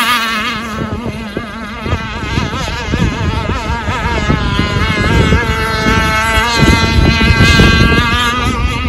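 Enforcer Stingray RC hydroplane running flat out across the water, its motor a high whine that wavers in pitch. It dips in level about a second in and swells again later.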